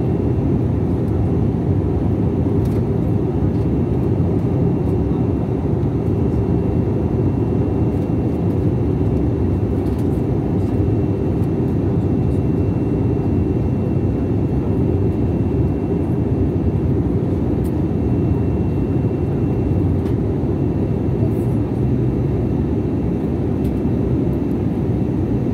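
Steady cabin noise of a jet airliner in flight, heard from a seat beside the wing-mounted turbofan engine: an even low rumble and rush of air, with a faint thin high tone held through most of it. The aircraft is descending toward landing.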